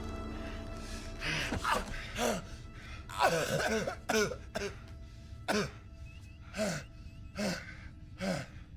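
A man coughing over and over: about ten short coughs, each falling in pitch, spaced under a second apart, with faint music playing underneath.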